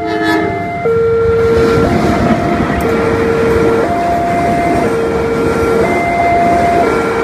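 Railway level-crossing warning alarm sounding a two-tone signal, switching between a higher and a lower tone about once a second, while passenger coaches roll past with a loud rushing wheel-on-rail noise.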